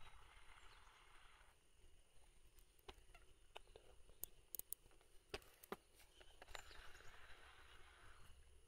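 Near silence: faint outdoor ambience with a few soft clicks in the middle.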